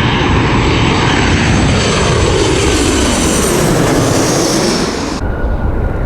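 Airliner's engines roaring loudly as the plane passes close by, with a tone that sweeps down and then back up. The hiss drops away suddenly about five seconds in.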